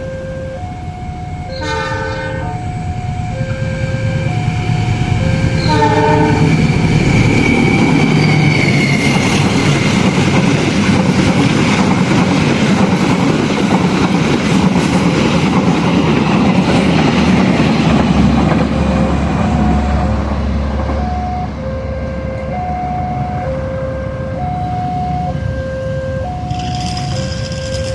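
A train passes over a level crossing: the crossing's warning signal alternates between two notes, the locomotive gives two short horn blasts, and the train then goes by with loud running noise and wheel clatter for about a dozen seconds while the warning signal keeps sounding.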